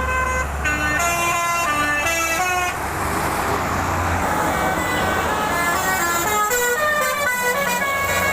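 Basuri 'telolet' musical bus horn playing quick runs of stepped notes, one phrase in the first three seconds and another from about five seconds in, over a steady low rumble.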